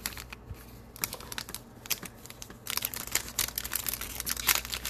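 Shiny foil wrapper of a Panini Prizm basketball card pack crinkling as hands handle it, a run of short sharp crackles that comes thicker in the second half.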